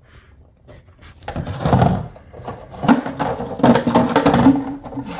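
Plastic parts of an EyeVac touchless vacuum being handled and taken apart: a quick run of clicks and knocks, with a low steady hum under them in the second half.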